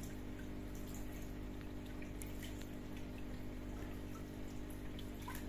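Nano reef aquarium running: a steady low hum from its circulation equipment under faint trickling water and small scattered drips.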